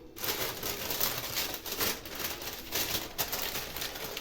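Baking paper rustling and crinkling in an irregular rhythm as hands press and roll a soft chocolate-biscuit mixture inside it into a log shape.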